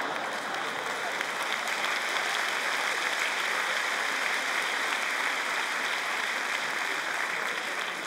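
Large hall audience applauding, a steady dense clapping.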